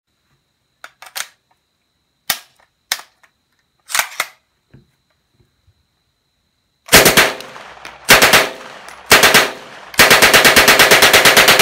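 A WWII German MP-40 submachine gun: a few light metallic clicks as it is handled, then, about seven seconds in, three short bursts of full-auto fire about a second apart. These are followed by a long continuous burst at about eight rounds a second.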